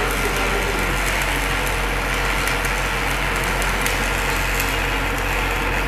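Shielded metal arc (stick) welding: the electrode's arc crackling and spitting steadily, over a steady low hum.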